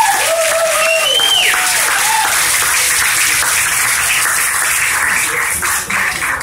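Audience applause after a choir song, dense and steady clapping, with whoops of cheering over the first second or two, one rising high.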